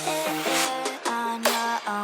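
Background music: a quick melody of short pitched notes.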